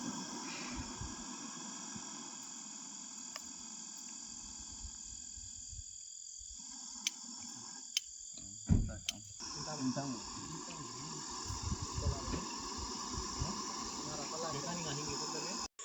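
Night chorus of crickets and other insects chirring steadily, with a few sharp clicks and a short knock about nine seconds in.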